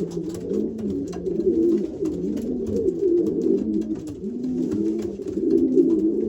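A loft full of racing-pigeon cock birds cooing all at once, with many overlapping rising-and-falling coos and scattered light clicks. These are cocks in breeding condition, worked up and claiming nest boxes.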